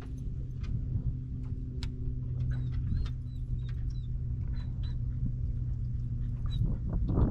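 A dog on the boat's bow deck gives a few short, high whimpers over a steady low motor hum, with scattered light clicks and a brief rush of noise near the end.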